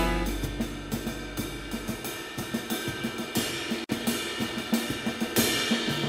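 Jazz drum kit playing a short break: steady snare strokes under hi-hat and cymbal, with a cymbal crash about three and a half seconds in and another near the end. A held low note from the band dies away over the first two seconds.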